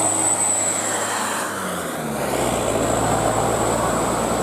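Road traffic passing: a vehicle engine's note drops in pitch as it goes by about one and a half seconds in, then a steady low engine drone over tyre and road noise.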